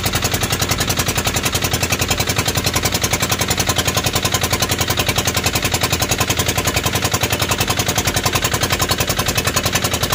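Outrigger boat's engine running steadily under way, a loud, unmuffled, rapid and even chugging that the crew call noisy.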